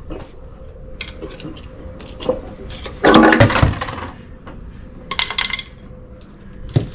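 Metal tools and rear-axle parts clinking and clattering during disassembly of a Ford 9-inch rear end, with a louder clatter about three seconds in and a few sharp metallic clinks near five seconds.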